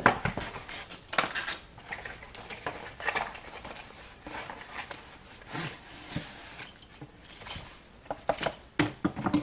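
A cardboard box and its packing wrap being opened and handled as a stainless steel tank is unpacked: irregular rustling and scraping with light clinks and knocks, a few ringing clinks near the end.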